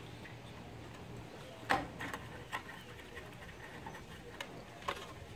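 A few scattered light clicks and knocks of plastic and metal parts as the internal air regulator, with its new filter bowl, is handled and pushed back into place inside a Hypertherm Powermax 45 plasma cutter. The sharpest knock comes just under two seconds in.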